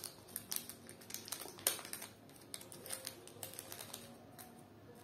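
Cadbury 5 Star bar's gold foil wrapper crinkling and crackling as it is handled and folded open, a run of irregular sharp crackles with a louder one near the middle.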